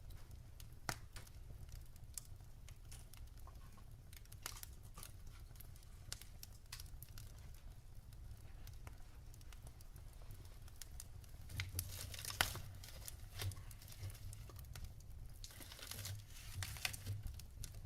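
Wood fire burning in a fireplace: irregular crackles and pops over a low steady rumble, with busier bursts of crackling about two thirds of the way through and again near the end.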